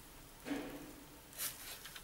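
Faint handling noise of a plastic-cased tape-head demagnetizer and its coiled cord being turned over in gloved hands on bubble wrap: a soft bump about half a second in and a short crinkle of plastic about a second and a half in.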